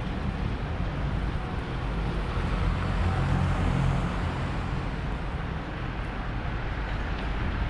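City street traffic: a steady low rumble of vehicle engines and tyres, with an engine hum that swells about three to four seconds in.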